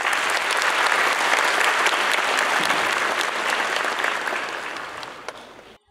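A large audience applauding, a dense patter of many hands clapping. It fades over the last second and then cuts off suddenly.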